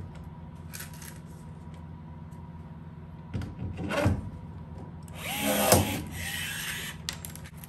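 Milwaukee cordless rivet tool setting two blind rivets in aluminium skin, about 3 and 5 seconds in. Each time the motor runs for about a second and the pulled mandrel breaks with a sharp snap. A steady low hum runs underneath.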